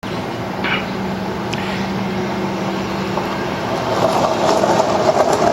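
Steady mechanical hum with a low held drone, growing a little louder about four seconds in.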